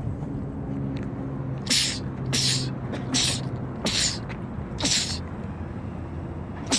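A man sneezing in a rapid run: five short, sharp, hissing sneezes about two-thirds of a second apart, with another starting near the end.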